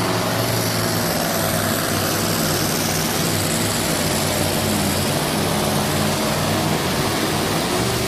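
Diesel engine of a truck-pulling truck running at full power under heavy load as it drags a weight-transfer sled, a loud steady drone that holds one pitch throughout.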